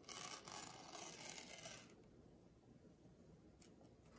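Protective paper backing being peeled off a clear acrylic sheet: a rustling, tearing hiss for about two seconds.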